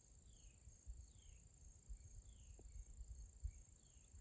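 Faint insect chorus: a steady high-pitched trill of crickets, with a short downward-sliding call repeating roughly once a second.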